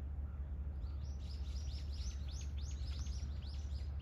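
A bird calling in a quick run of short, high, downward-sliding chirps, about five a second, starting about a second in, over a steady low rumble.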